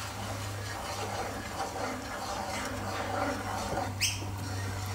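Wooden spoon stirring sugar syrup heating in a non-stick pot on a gas stove, with small faint scraping and bubbling sounds over a steady low hum. A brief sharp high chirp about four seconds in.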